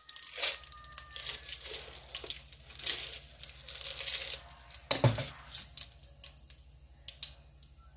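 Whole spices (bay leaves, cinnamon sticks and cardamom pods) sizzling and crackling in hot oil in an aluminium pot, the sizzle thinning in the second half. A soft knock about five seconds in.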